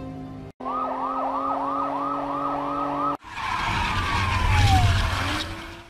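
Police car siren, a rapid up-and-down yelp about three times a second over steady held tones, cutting off abruptly about three seconds in. It gives way to a car going by, a low engine rumble and a rushing sound with a falling tone, loudest near the end.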